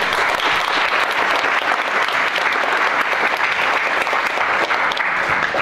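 Audience applauding: many people clapping together in a steady, dense patter that begins to fade near the end.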